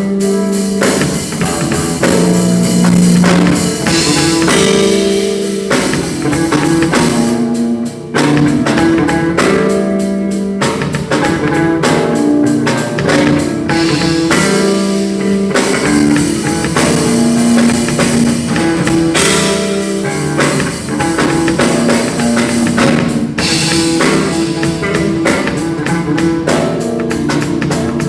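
Music with a drum kit playing a steady beat under guitar.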